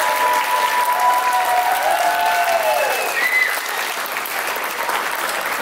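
Audience applauding after a children's dance routine. A few long, drawn-out cheers rise above the clapping in the first three seconds and tail off downward.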